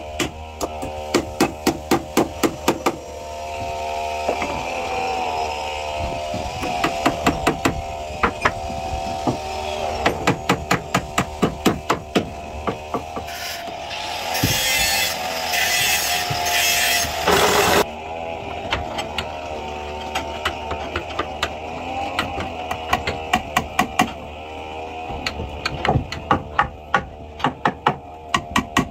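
Steel hammer striking a hardwood brace block, driving it into a joint in a wooden fishing boat's frame, in quick runs of blows about four a second. A few harsh hissing bursts come about halfway through.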